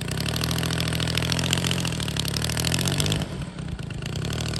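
The Kolm 230 inline petrol engine of a giant-scale RC P-51 Mustang running on the ground with its propeller blowing a strong rush of air. The engine revs up a little and then throttles back to a lower speed about three seconds in.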